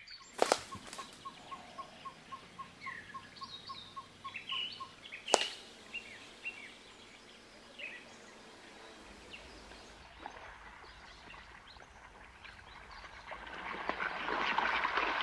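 Natural ambience of birds calling: scattered chirps and an even run of short high pips, a little under four a second, for the first few seconds. Two sharp snaps are the loudest moments, and near the end a denser, louder chatter of bird calls swells up.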